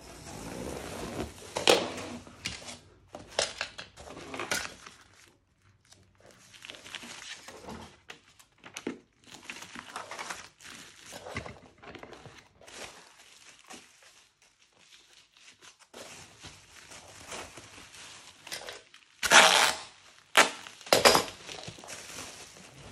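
Plastic wrapping crinkling and rustling in irregular bursts as it is handled, with two louder bursts near the end.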